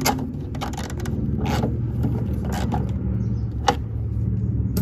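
Socket wrench tightening a nut on a metal earth point: a few short clicks and scrapes, roughly a second apart, over a steady low hum.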